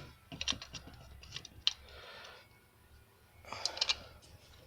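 Light clicks and scratchy rustling from small parts being handled by hand while anti-seize is dabbed on. The sounds come in a few short clusters, the loudest near the end.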